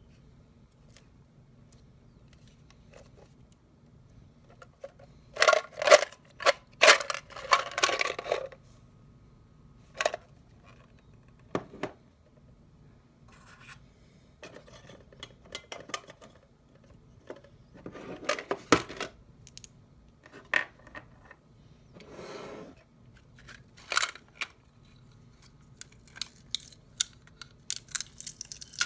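Candy packaging being handled and opened: crinkling and tearing in short spells, with scattered sharp clicks and knocks and a quick run of clicks near the end.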